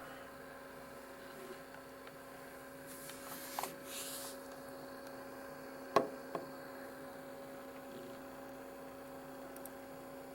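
A steady electrical hum at a low level, with a brief hiss about three seconds in and a single sharp click about six seconds in.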